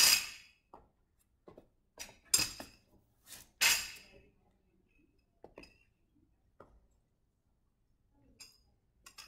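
Empty steel barbell clinking on a rubber gym floor as it is put down and shifted: several sharp metallic clinks in the first four seconds, each with a brief ring, then a few faint knocks.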